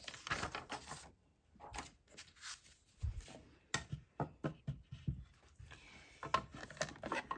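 A mini die-cutting machine and its plastic cutting plates being handled and set in place: a run of irregular light clacks and knocks with some rubbing and rustling between them.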